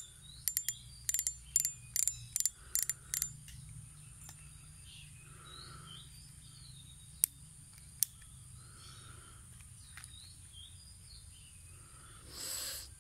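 Sharp clicks as an Abu Garcia Black Max 10 spinning reel is handled, about a dozen in the first three seconds, with two single clicks later. Birds chirp over it, and a short rustle comes near the end.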